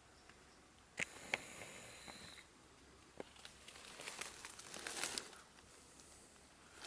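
Rustling and crackling of undergrowth being pushed through or handled, with a few sharp snaps about a second in and scattered crackles later.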